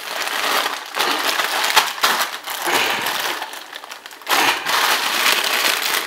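Plastic wrapper of a Maggi instant noodle packet crinkling and crackling in irregular bursts as hands squeeze, twist and tug at it to tear it open.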